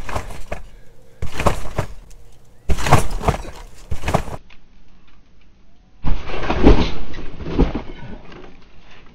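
Rectangular ACON trampoline being jumped on: the mat and its springs stretch and thud with each landing in a run of bounces, the heaviest in the last three seconds during a Cody flip.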